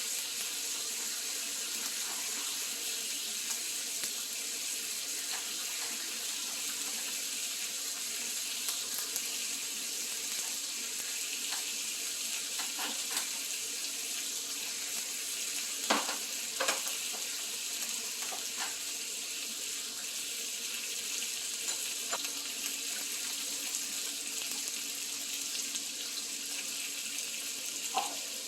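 Food sizzling in a hot pan, a steady hiss with a few sharp clicks of utensils about halfway through and near the end.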